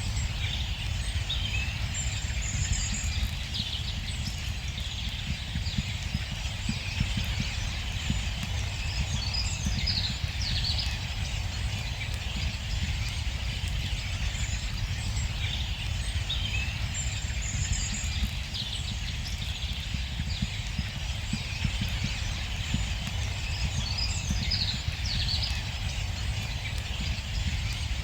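A distant mixed winter finch flock chattering continuously, many overlapping short calls from greenfinches, siskins, goldfinches and linnets among others, over a steady low rumble.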